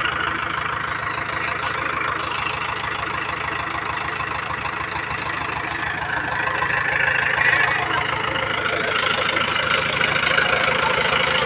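Mahindra 585 tractor's diesel engine running at idle with a steady, even beat, getting louder a little past halfway through.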